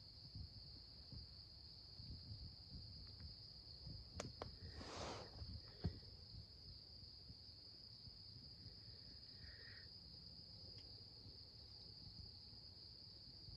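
A steady, high-pitched chorus of crickets over a low rumble, with a brief hiss of noise about five seconds in.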